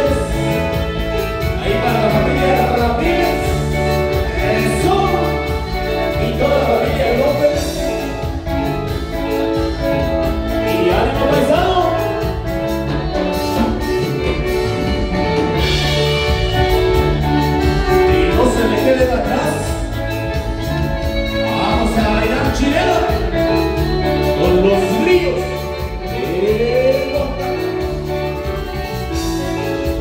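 A live band playing dance music, with a steady beat and a melody line over it.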